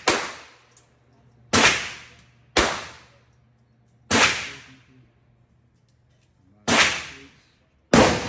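Six single gunshots from a firearm at a shooting range, fired one at a time at an uneven pace, one to two and a half seconds apart, each followed by a short echoing decay.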